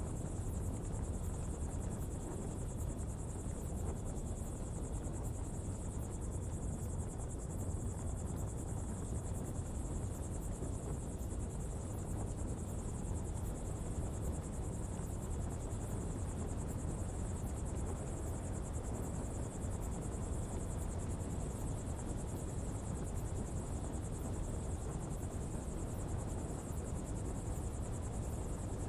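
Coal pottery fire burning steadily: a constant low rumble, with faint tiny crackles and a steady high-pitched whine above it.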